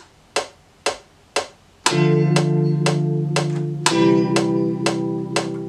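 Metronome count-in clicks, about two a second, then about two seconds in a sampled electric guitar patch in Reason's NNXT sampler, played from a MIDI keyboard, sounds a sustained chord over the continuing clicks, changing to a new chord about two seconds later.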